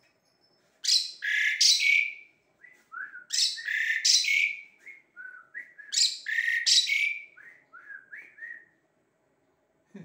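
Caged pied starling (jalak suren) singing. It gives three loud phrases of song about two and a half seconds apart, each trailing off in short falling notes.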